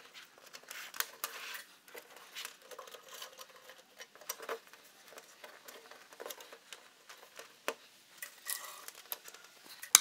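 Faint, scattered clicks and rustles of insulated electrical wire being handled, pulled along a wall and pressed into plastic wire clips, with a sharper click near the end.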